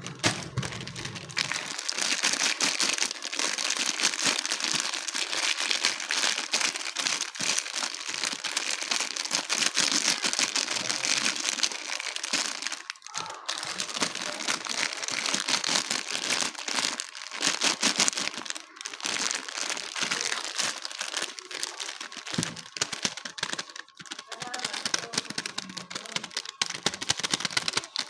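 Hands kneading and squishing a mix of old slime and super light clay: a dense, continuous crackling with many small pops, broken by a few short pauses.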